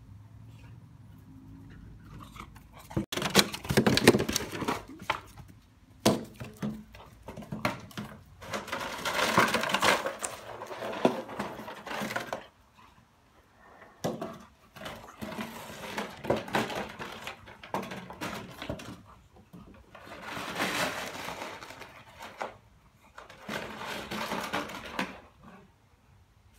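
Boxer puppy playing with a ball: several irregular bursts of rustling and clicking noise with short quieter gaps, the loudest about four seconds in.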